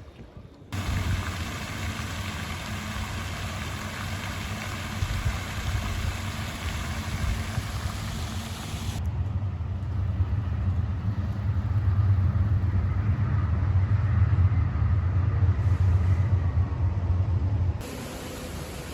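A motor running with a steady low rumble and hiss, growing louder and changing character about nine seconds in, then dropping off suddenly near the end.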